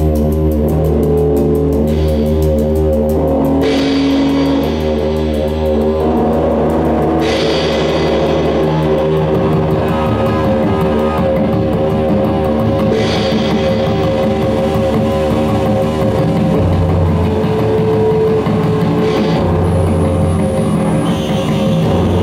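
Loud live experimental noise music: a dense, distorted drone of layered sustained tones over a steady low hum, with harsh hissing noise swelling in and dropping out every few seconds.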